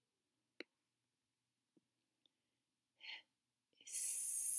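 A single sharp click about half a second in, then a short puff of breath and a loud breathy exhale, a sigh close to the microphone, near the end.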